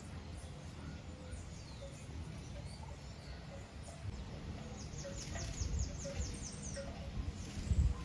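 Wind buffeting the microphone with a low rumble, gusting hardest near the end, while small birds chirp. About halfway through, a bird sings a fast run of about ten short, high, falling notes.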